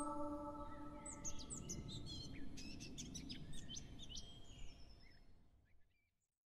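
Birds chirping in quick, high twitters that fade away to silence near the end, over the last sustained notes of music dying out in the first couple of seconds.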